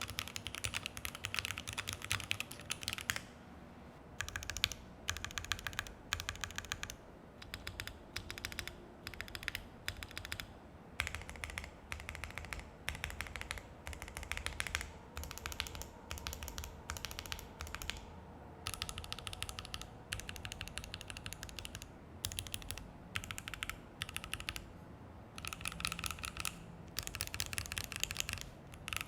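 Typing on a Keychron Q1 mechanical keyboard with FR4 plate and ePBT keycaps: fast key clacks in bursts with short pauses. The first few seconds are on Dogikon switches; after a pause about three seconds in, typing resumes on Banana Split switches.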